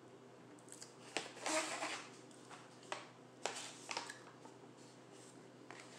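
Crinkling and rustling of a stiff plastic snack pouch being handled and turned over, in short scattered bursts with a few sharp clicks.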